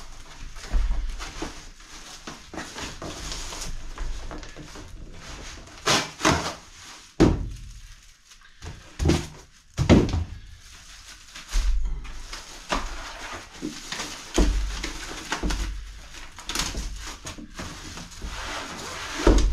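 Unpacking noises: cardboard boxes and polystyrene packing handled and pulled apart, rustling and scraping, with several knocks and thumps as a boxed battery is lifted out, the loudest about ten seconds in.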